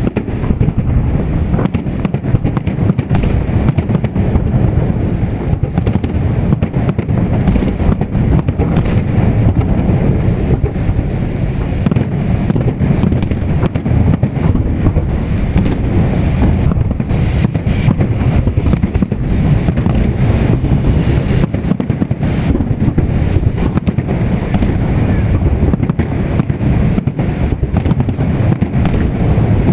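Fireworks salute: a dense, continuous run of bangs and crackles over a low rumble, with wind buffeting the microphone.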